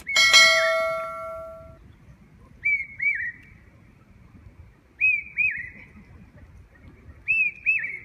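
A hawk-cuckoo calling: three loud whistled two-note phrases, each note arching up and down in pitch, spaced about two and a half seconds apart and growing louder each time. Right at the start, a click and a ringing bell-like chime from a subscribe-button sound effect.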